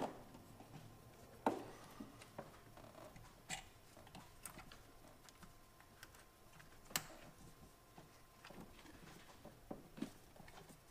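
Scattered clicks and light taps from hands working rubber hoses, hose clamps and fittings in a car's engine bay, a few seconds apart, with the sharpest one about seven seconds in.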